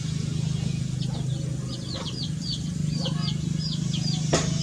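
Small birds chirping rapidly in short high notes over a steady low hum, with one sharp click near the end.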